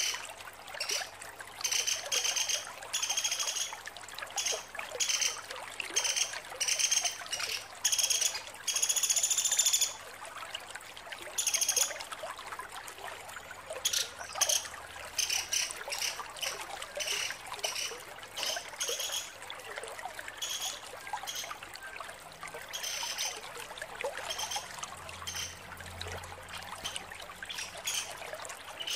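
Female pelatuk sampit, a small woodpecker, calling in repeated short, high-pitched chattering bursts (ngecret), with one longer burst about nine seconds in.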